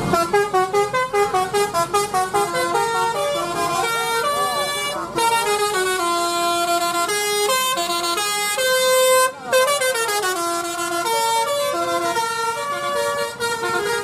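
Tour bus's multi-tone "telolet" horn playing a rapid melody of stepped notes, with a couple of siren-like sliding glides around four and nine seconds in.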